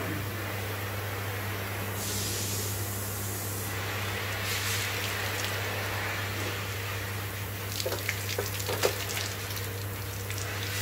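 Steady low shop hum under an even hissing noise, then a few short metal clicks and knocks near the end as the cylinder head is worked off the engine block.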